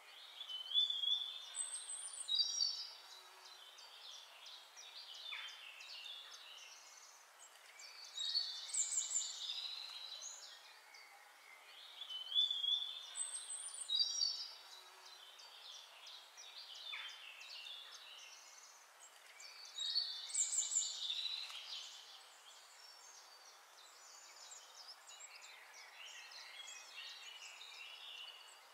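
Songbirds chirping and trilling in short bright phrases that come every few seconds, over a faint steady hiss.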